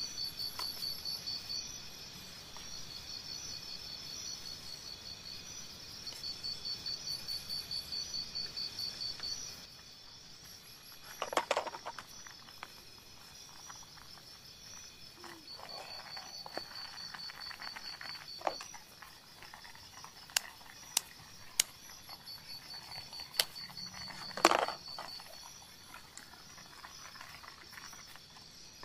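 Insects chirping in steady high, pulsed trains. A utensil knocks and scrapes against a metal camping pot of noodles a few times in the second half, the loudest knock coming near the end.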